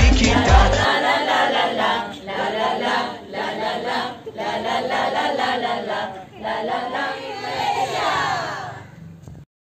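A group of women singing together in unison without accompaniment. A song with a heavy beat stops about a second in, and the singing cuts off just before the end.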